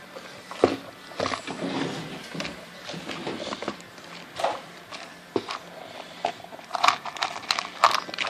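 Scattered light clicks and knocks as a toddler handles his plastic snack cup, with small bouncy balls rattling inside it.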